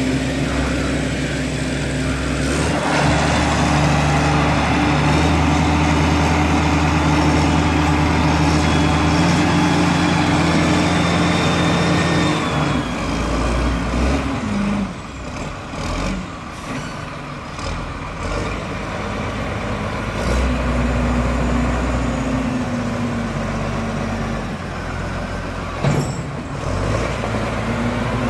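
Diesel engine of a Foton wheel loader running as the machine drives about, its engine speed changing several times. The engine grows fainter for several seconds in the middle as the loader moves off, then comes back strongly, with a single sharp knock near the end.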